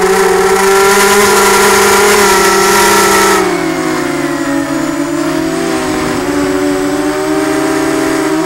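Eachine Falcon 250 quadcopter's motors and propellers whining, heard from the onboard camera. The pitch rises at the start, holds high and loud for about three seconds, then drops and wavers as the throttle eases.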